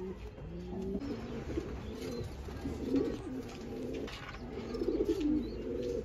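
Domestic pigeons cooing: a run of low coos, one after another.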